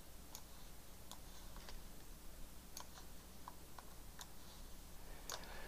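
Computer mouse clicking faintly, a dozen or so short clicks at irregular intervals.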